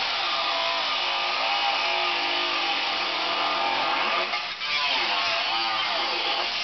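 Angle grinder cutting into the steel front end of a 1989 Isuzu Trooper, a loud continuous whine over grinding noise. Its pitch sags and recovers as the disc bites under load, with a brief break about four and a half seconds in.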